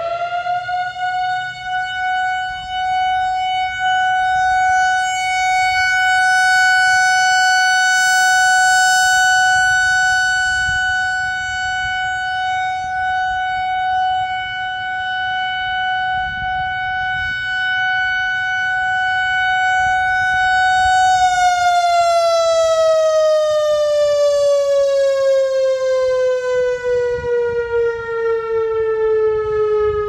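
Whelen WPS-4004 analog electronic siren sounding a steady alert tone as a test. The pitch finishes a quick rise, then holds one steady tone that swells and dips in loudness as the four-horn head rotates. About 21 seconds in it begins a slow, falling wind-down.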